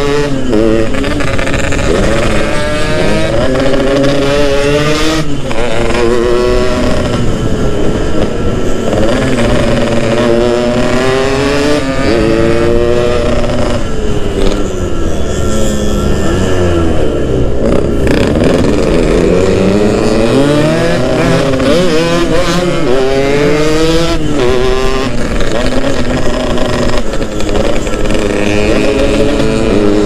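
Yamaha RX-King two-stroke single-cylinder motorcycle engine under way, revving up through the gears. The pitch climbs, then drops at each shift, with short breaks about every six seconds and a slower stretch of falling pitch around the middle.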